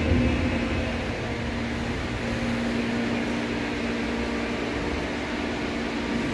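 Electric subway train at the platform behind the screen doors, giving a steady hum with a few held low tones from its onboard equipment.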